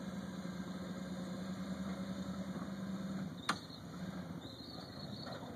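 Off-road 4x4 engine running at a steady idle hum, which drops away a little over three seconds in, followed at once by a single sharp click.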